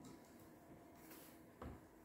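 Near silence, with faint handling of the battery leads inside a garage door opener and one soft knock about one and a half seconds in.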